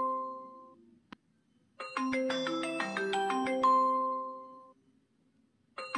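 Flala dating app's incoming-call ringtone: a short marimba-like melody that rings out and fades, then starts again, about every four seconds. A single faint click falls in the first pause.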